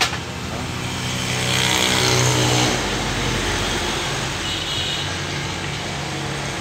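Boss rotary hammer drill running: a sharp click, then a steady motor drone that grows louder for about two seconds and then holds steady.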